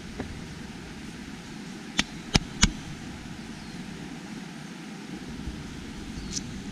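Three sharp knocks in quick succession about two seconds in, and a fainter one near the end, over a steady low rumble.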